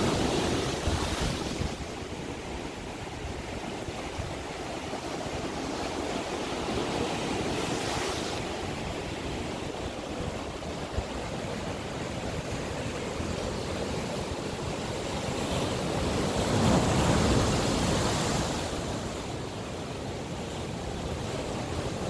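Sea surf breaking over black volcanic rocks, a rushing wash that rises and falls with each wave, loudest about three-quarters of the way through.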